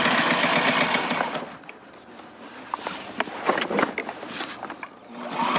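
Sailrite LSZ-1 walking-foot sewing machine stitching fast through heavy sailcloth, then stopping about a second and a half in. A few light clicks and knocks follow as the cloth is handled.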